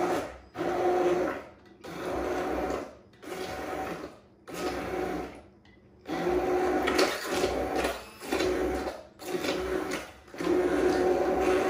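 Hand-held immersion blender running in short on-off pulses, about a second each, with a brief pause about five seconds in and a longer steady run near the end. It is mashing slow-cooked apples into applesauce in a crock pot.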